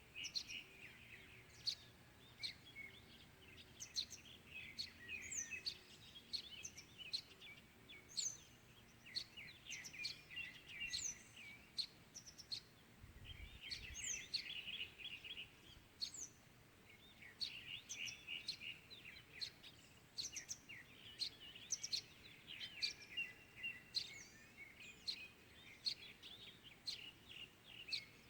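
Morning chorus of several small birds chirping and twittering, busy and overlapping, with sharp high chirps every second or so over a faint steady background hum.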